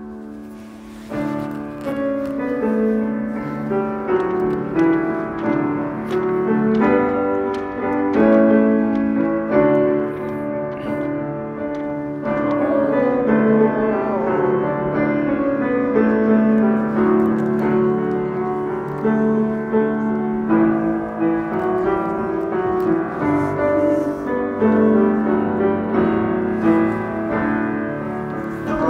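Background piano music with slow notes and held chords, starting about a second in.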